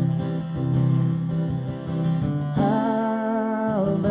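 Acoustic guitar strumming a gospel song's accompaniment between sung lines. About two and a half seconds in, a long held melody note comes in over it and steps down in pitch.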